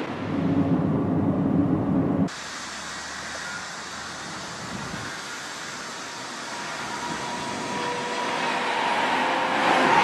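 Shanghai Maglev train: a low rumbling hum beside the train that cuts off about two seconds in, then a steady rushing noise with a faint high hum that grows louder toward the end as the maglev passes on its elevated guideway.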